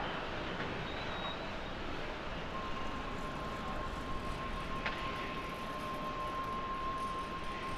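Jet airliner engines running in a steady rush as a Boeing 787-9 slows on the runway after landing. About two and a half seconds in, a steady high tone comes in over it.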